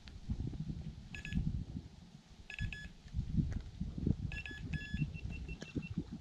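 Short electronic beeps: brief bursts of a multi-tone beep about a second in, near three seconds and again past four seconds, then a quick run of higher single beeps near the end. Loud, uneven low rustling and knocking from handling runs under them.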